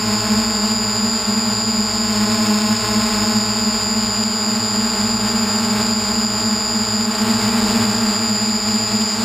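Electric motors and propellers of a DJI hexacopter in flight, heard up close from a camera mounted on the craft: a loud, steady hum with a steady high whine over it.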